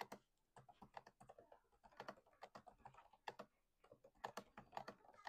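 Typing on the Nulea RT05B wireless ergonomic keyboard: a quick, irregular run of soft key clicks. A quieter keyboard sound that is still satisfying.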